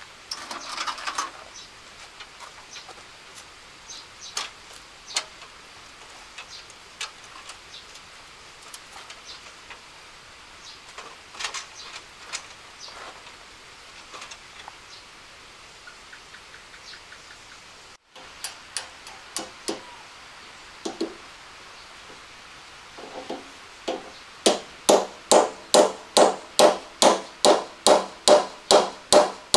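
Scattered light taps and clicks of hand work, then from about 24 seconds in a steady run of hammer blows, about two a second, each with a short ring.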